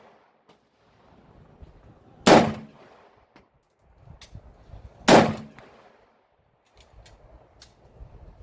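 Two loud gunshots about three seconds apart, each with a ringing echo tail, with fainter sharp cracks in between.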